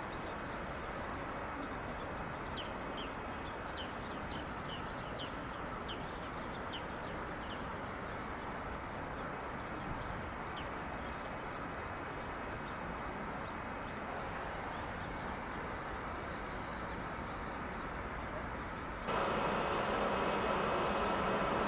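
Steady running hum of a standing JR Freight EF65 electric locomotive at the head of a container freight train, with small birds chirping through the first several seconds. Near the end it gets suddenly louder, with a steady humming tone up close to the locomotive.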